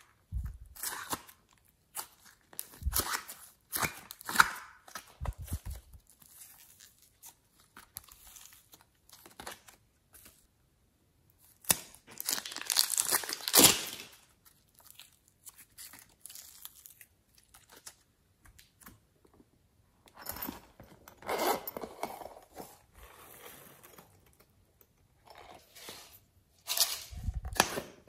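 Hands pulling and squishing soft foam clay, in short irregular bursts of tearing, crinkling handling noise. About twelve seconds in comes a longer, louder stretch as clay is squeezed out of a plastic piping bag.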